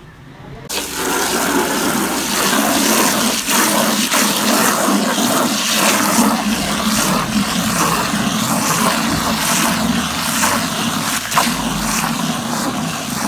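Water from a hose pouring into a plastic bucket, splashing and whipping car-wash shampoo into thick suds. It starts about a second in and runs steadily.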